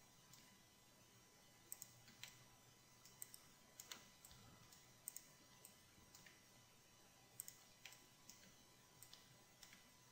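Faint computer mouse clicks, mostly in quick press-and-release pairs, scattered through otherwise near silence.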